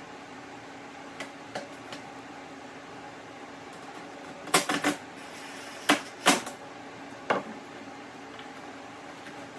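Sharp clicks and knocks of hard plastic parts being handled while a mesh bag is screwed into a plastic crate: a few light clicks early, then a cluster of louder knocks in the middle, over a steady low hum.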